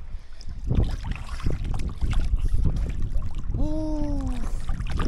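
Seawater sloshing and splashing close by as a person wades chest-deep through choppy water. About three and a half seconds in, a short drawn-out voice sound, falling slightly in pitch.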